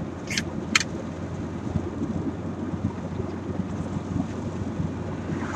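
Steady road and engine rumble inside a moving car's cabin. Two sharp clicks near the start come from a small juice container being handled.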